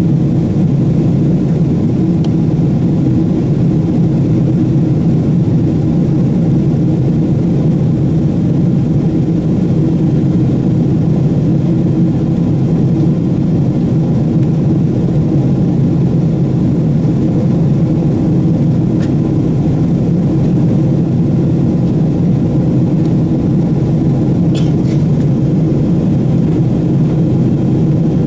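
Steady cabin drone of a Boeing 777-300ER in flight: its GE90 jet engines and the rushing air over the fuselage, heard from a seat over the wing as a loud, even, low noise.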